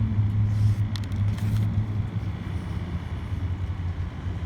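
Steady low hum of a car engine idling, heard from inside the cabin, with a few brief crackles, such as wrapper rustle or a crunchy bite, about a second in.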